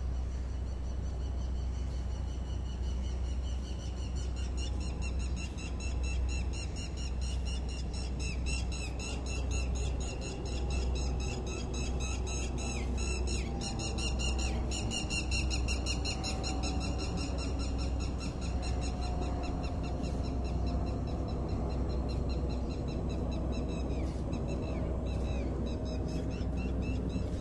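Engine noise: a steady low rumble with a high, wavering whine above it, and a lower tone that slides slowly down through the second half.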